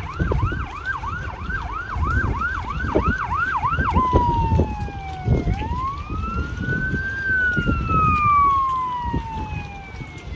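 Emergency vehicle siren, first in a fast yelp of about three pitch sweeps a second, then switching about four seconds in to a slow wail that falls, climbs and falls again.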